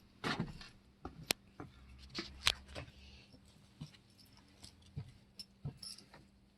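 Irregular light knocks and clicks of a person moving about and walking off, with a few sharper ticks, in a small room.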